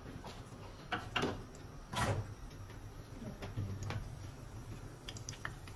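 Kitchen handling at a stove: scattered light knocks and clicks of dishes and utensils, the loudest about two seconds in, over a faint low hum.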